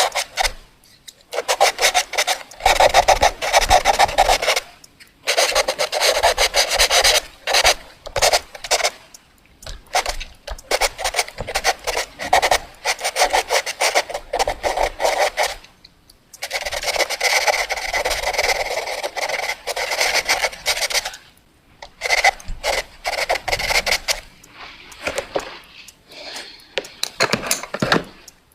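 Quick sketching on paper: rapid back-and-forth scratching strokes in runs of several seconds, broken by short pauses.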